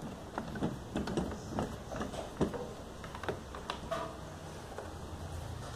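Irregular light wooden taps and clicks as small wooden jig pieces are handled and set against a workbench, dying away about four seconds in.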